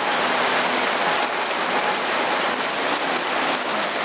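Heavy rain pouring steadily onto a flooded street, with the water hissing and sloshing as a city bus drives through the flood, throwing spray from its wheels.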